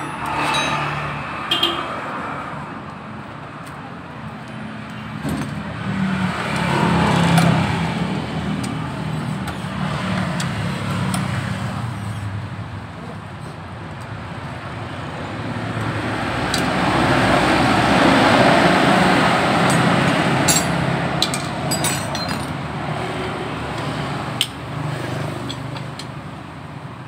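Road traffic passing close by, with vehicles going by in swells, the loudest about two-thirds of the way through. A few light metallic clinks of hand tools on the engine are heard now and then.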